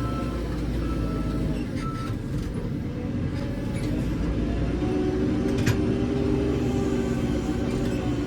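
JCB 3CX backhoe loader's diesel engine running under load. Its reversing alarm beeps about once a second for the first two seconds and then stops. About five seconds in, the engine revs up.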